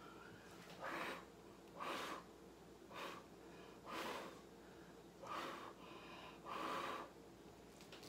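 Six short, forceful puffs of breath, about one a second, as a person blows on wet acrylic paint to push and soften it on the canvas.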